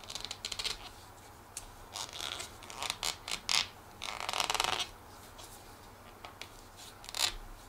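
Packaging being opened by hand: several short bursts of rustling and tearing, the longest about four seconds in.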